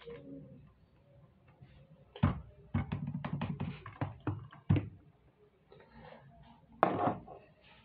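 Quick plastic clicks of a Rubik's cube being turned in the hands, then knocks on a desk as the cube is set down, with one louder thump near the end.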